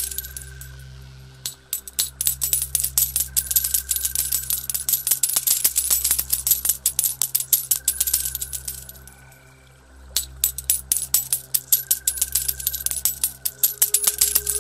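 Showers of coins clinking and jingling in rapid succession over a steady low synth drone of background music. The clinking thins out briefly twice, near the start and again around nine seconds in.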